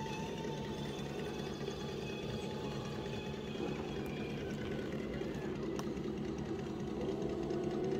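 Small electric motor and geared drivetrain of an RC rock crawler whirring steadily, with small shifts in pitch as it drives.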